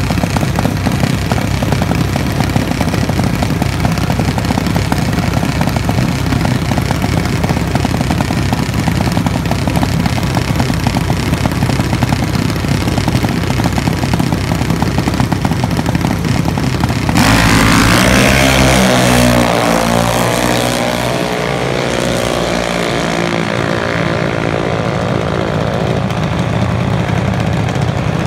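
Dragster engine idling steadily, then about seventeen seconds in it goes to full throttle on launch, and the engine note falls in pitch and fades as the car speeds away down the strip.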